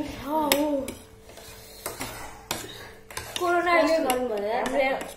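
Metal forks clinking and scraping on plates during eating, with several sharp clicks. A woman's voice is heard briefly at the start and again for about a second and a half near the end.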